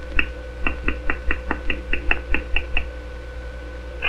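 Cartoon sound effect of a foot tapping: about a dozen evenly spaced sharp taps, roughly five a second, lasting under three seconds, over the steady hum of an old film soundtrack.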